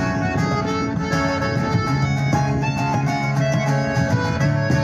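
Folk band playing an instrumental passage on piano accordion and strummed acoustic guitar, with no singing, in a steady rhythm.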